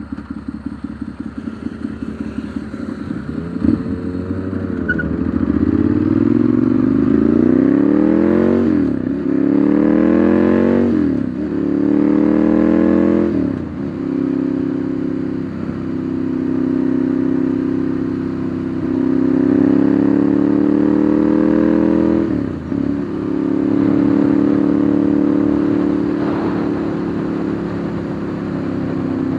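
Ducati Monster 1100's air-cooled L-twin engine from the rider's seat, pulsing at low revs, then pulling away: three quick rising sweeps, each cut off by a sharp drop in pitch at an upshift. It settles into steady cruising, with one more climb and shift about two-thirds of the way through.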